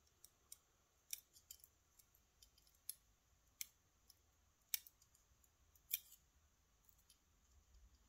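Faint, scattered light clicks and scrapes of a thin metal tool probing the pin chambers of a lock cylinder housing, fishing out the springs; the clearest clicks come about a second in and near 5 and 6 seconds.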